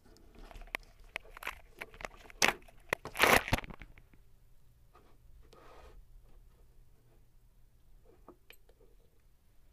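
A hand handling the LiPo pack and its leads on a desk, with scrapes, rustles and clicks, loudest around two and a half and three and a half seconds in. A single sharp click about eight and a half seconds in as the stopwatch button is pressed to stop the timer.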